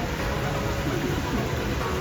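Steady rushing background noise with a low hum, unchanging throughout.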